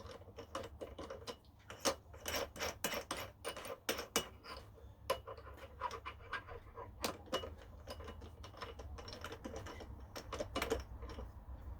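Irregular light clicks and taps, several a second in uneven clusters, from small objects being handled at a workbench, over a faint steady low hum.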